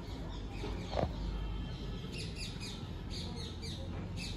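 Birds chirping: short runs of quick, high, downward-sweeping chirps, with a single soft thump about a second in.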